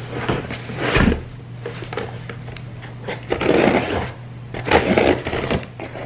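A cardboard shipping box is handled and set down with a thump about a second in. Then scissors scrape and slice through its packing tape, with bursts of cardboard rustling.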